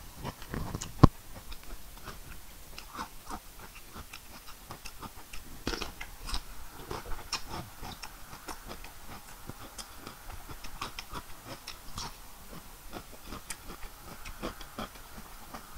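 A person biting and chewing a whole raw cucumber, a steady run of small crunchy clicks, with one sharp loud click about a second in.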